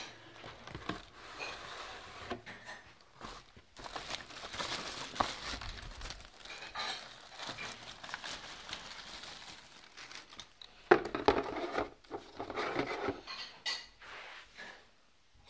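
Cardboard box and clear plastic bag being handled as a cycling helmet is unpacked: irregular rustling and crinkling with scattered light knocks, loudest in a burst about eleven seconds in.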